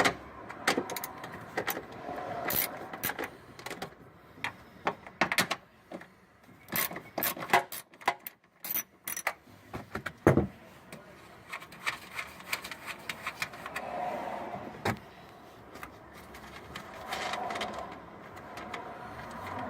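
Irregular metal clicks and clinks of hand tools and small fasteners as the 10 mm screws holding a car's tail light assembly are loosened and taken out, with one heavier knock about halfway through.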